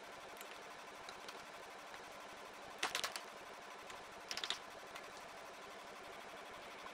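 Wooden spatula clacking against a frying pan while tossing spaghetti: two quick clusters of clicks about three seconds in and again a second and a half later, with a few lighter taps, over a faint steady hiss.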